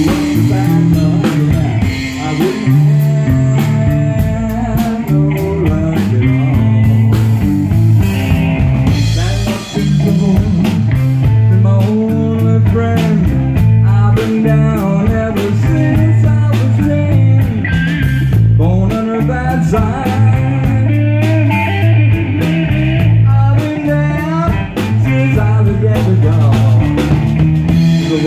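Blues-rock band playing live: electric guitar over bass and drums, with a repeating low riff and bending guitar lines.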